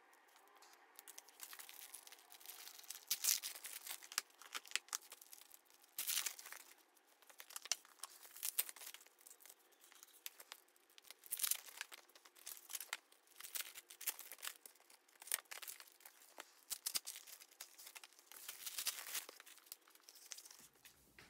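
Plastic packaging on stationery being torn open and crinkled by hand: irregular rustling and crackling with short louder tearing sounds.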